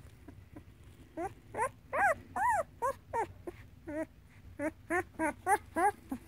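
Young black puppy whimpering: a string of about a dozen short, high whines, each rising then falling in pitch, starting about a second in.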